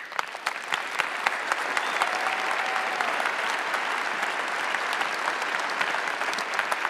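A large audience applauding: scattered claps quickly thicken into dense, steady clapping.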